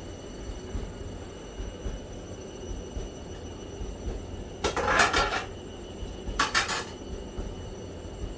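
Kitchen handling noise over a low steady hum: two short, loud bursts of clatter, about five seconds in and again a second and a half later, as seasonings and utensils are moved about.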